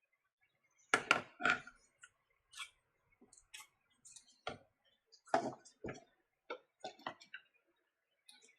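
A series of irregular sharp clicks and light knocks from small hard objects being handled, the loudest few about a second in.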